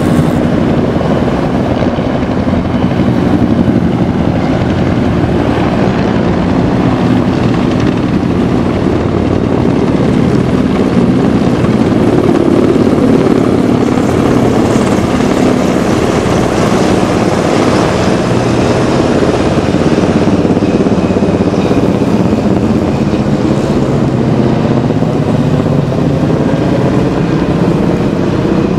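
A formation of military helicopters flying low overhead, their rotors and engines making a loud, steady drone that swells slightly about halfway through.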